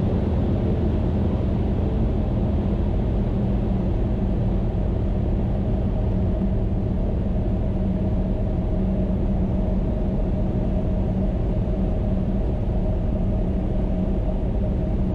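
Cessna Skyhawk light aircraft's piston engine and propeller droning steadily in flight, with a constant low hum and no change in pitch.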